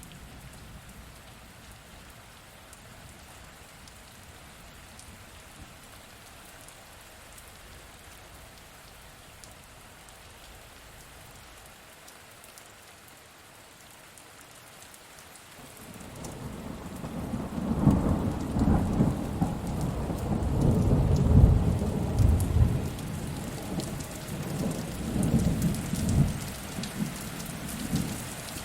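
Steady rain falling, with a long roll of thunder rising about halfway through. The thunder swells into several loud rumbles and then eases off near the end.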